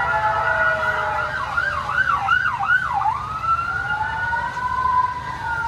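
Several electronic fire-truck sirens sounding at once from a children's fire rescue truck ride. Slow rising and falling wails overlap, with a fast warble of about four quick sweeps in the middle.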